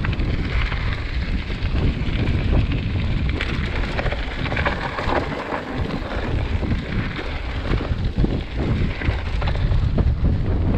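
Mountain bike riding fast down a loose, stony dirt trail: the tyres crunch and crackle over gravel, with frequent small knocks and clicks from the bumps, and wind rumbles on the microphone.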